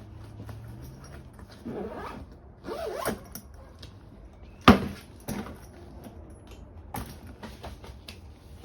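Scraping and clicking of objects being handled, with short rasping sweeps and one sharp knock about halfway through.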